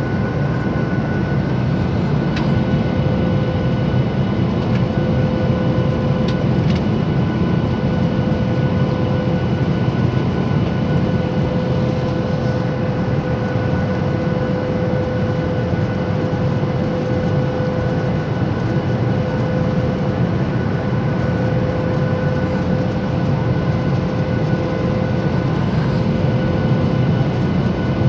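Steady cabin noise of a Boeing 737 airliner in flight, heard from a window seat over the wing: a dense rumble of jet engines and rushing air with a few steady whining tones over it.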